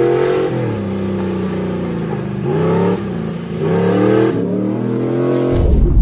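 Engine of a long-travel Toyota Tacoma off-road truck revving hard again and again, its pitch climbing and falling with each rev. About five and a half seconds in, the revving gives way to a deep rumble.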